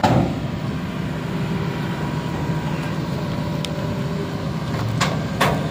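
Heavy diesel engine of a large cargo truck running steadily at low revs, with a few short sharp noises near the end.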